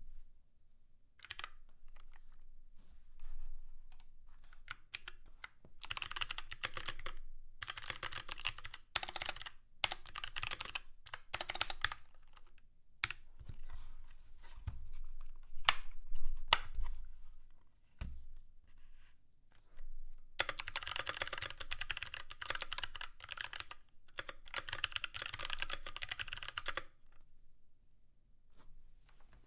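Mechanical keyboard being typed on in runs of rapid key clicks with short pauses between them, with a few heavier thuds about halfway through.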